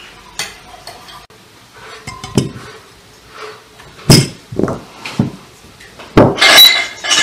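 Kitchenware being handled on a table: a few light clinks, a knock, then several sharp knocks and a longer ringing clatter near the end.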